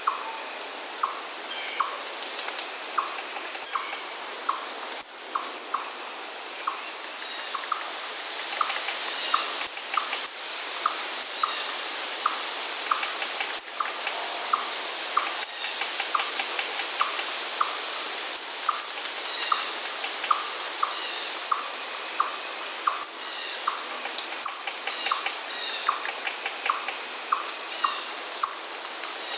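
Steady high-pitched chorus of crickets, with a bird's short chirps repeating every second or so over it.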